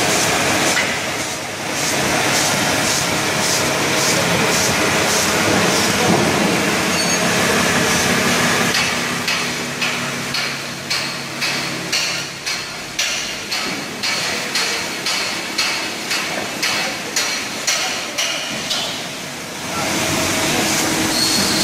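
Two-side automatic labelling machine and its bottle conveyor running, a steady mechanical hiss and rumble. From about nine seconds in, a regular clacking joins it, about twice a second, as the line handles the bottles.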